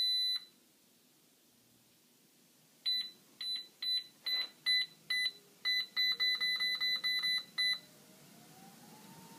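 Livestrong LS8.0T treadmill console beeping as its buttons are pressed: one long beep, then a run of short beeps that quicken to about three a second. Under the later beeps the drive motor's faint whine rises in pitch as the empty belt speeds up to 2 mph, and it levels off near the end.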